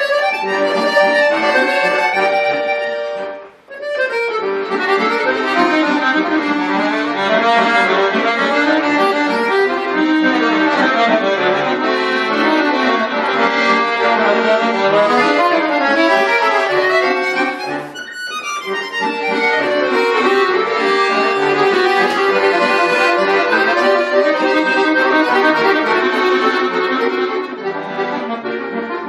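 Bayan (Russian button accordion) playing a lively piece full of quick rising and falling runs. It starts abruptly, breaks off briefly about three and a half seconds in, and dips for a moment around eighteen seconds.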